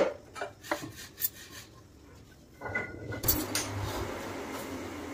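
A hand rubbing flour and ghee together in a plastic bowl by hand, with metal bangles on the wrist clinking in a few light clicks and rustles over the first second and a half. After that a steady low hiss.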